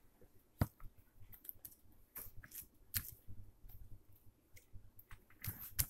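Slime being handled with the hands: faint, scattered sticky clicks and small pops at irregular intervals, one of the sharpest about half a second in and another pair near the end.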